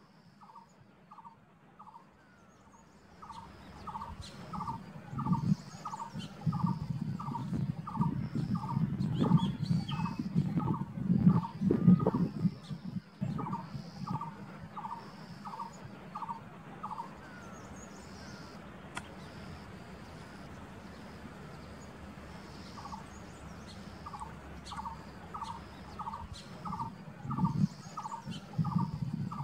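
A barbet calling a long series of evenly spaced single notes, about three a second, with a pause of several seconds past the middle before it starts again. A low rumble that rises and falls runs underneath and is the loudest sound in the first half, and other small birds chirp faintly.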